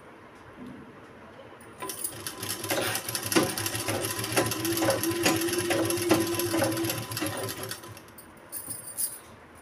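Sewing machine running, stitching a seam through layered fabric. It starts about two seconds in and runs for about six seconds, with a rapid run of needle strokes, then stops. A few light clicks follow near the end.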